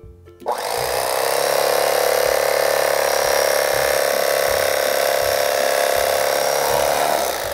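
Cuisinart CEK-30J electric knife switched on about half a second in, its motor and reciprocating twin blades buzzing steadily as they saw through a block of ham; it winds down and stops just before the end.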